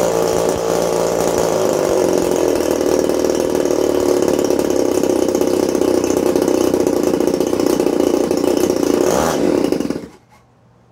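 RCGF 20cc twin-cylinder boxer two-stroke gas engine running steadily, turning a 16x8 propeller, then cutting out abruptly about ten seconds in. The owner puts the stall down to the idle being set too low.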